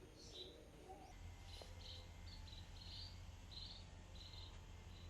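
Near silence with faint insect chirping: short high chirps repeating irregularly over a low steady hum.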